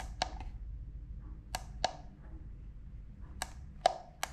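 Plastic push-buttons on a Würth MM 600 TRMS digital multimeter clicking as they are pressed, about eight sharp clicks, some in quick pairs.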